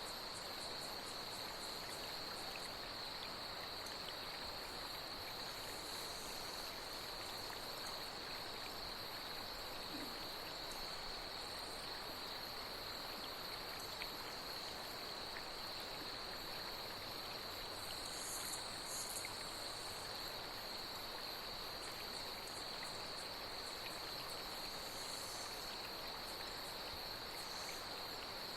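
Night insects trilling steadily in one high, unbroken tone over the even rush of flowing water, with a few brief higher chirps now and then, two close together about two-thirds of the way through.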